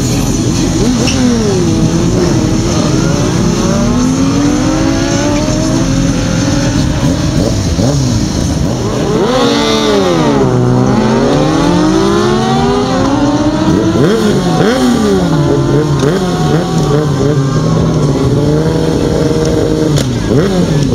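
Several sport motorcycle engines revving hard and accelerating in drag-race sprints, overlapping one another. Each note repeatedly climbs and then drops back as the bikes shift up, with one deep dip and climb in pitch about ten seconds in.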